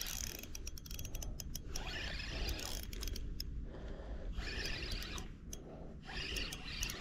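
A fishing reel being cranked in short bursts while a hooked fish is reeled in: a whirring gear sound, stopping and starting, with sharp clicks.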